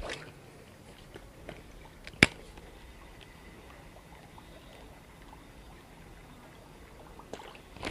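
A baitcasting reel winding in a lure quietly over a faint steady background hiss, with one sharp click about two seconds in.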